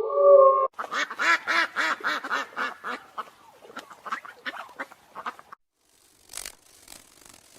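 A short held tone cuts off under a second in. A duck then quacks in a rapid run of about four quacks a second, fading away over some four seconds. A few scratchy clicks follow near the end.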